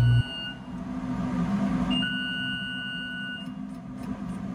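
A long, even beep tone that repeats about every three seconds, each lasting about one and a half seconds, over a steady low hum. A louder low hum cuts off just after the start.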